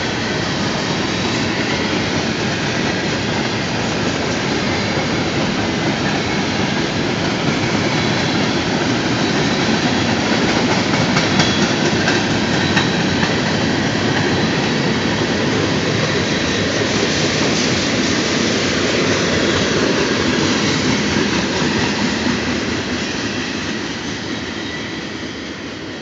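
CSX freight train's covered hopper cars rolling past, steel wheels running on the rails with a faint thin wheel squeal at times. The noise fades over the last few seconds as the end of the train passes and moves away.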